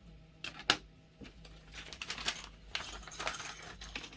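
Small hard plastic parts being handled and set down on a hard surface: light clicks, a sharp one just under a second in, then bursts of rattling clatter in the second half.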